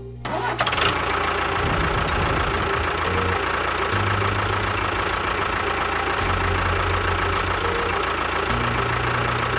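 A machine running steadily: an even mechanical noise with a constant whine through it. It starts abruptly just after the beginning.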